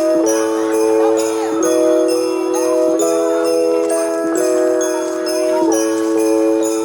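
Background music of bells and jingle bells over held chords that change about every one and a half seconds, with a steady low note.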